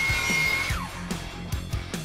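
Sliding compound miter saw motor whining at full speed, then spinning down with a falling pitch after the trigger is released, less than a second in. Background music with a steady beat plays throughout.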